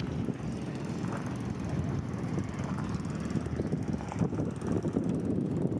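Wind buffeting the camera's microphone: a loud, irregular low rumble that wavers in gusts, with no steady engine pitch in it.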